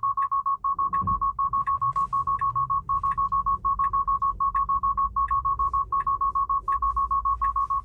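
Tesla Full Self-Driving take-over alarm: a rapid, unbroken run of high beeps in short groups of about five, some seven beeps a second, over low road rumble. It signals a system abort that makes the driver take control, which the driver puts down to the car losing traction on a steep incline.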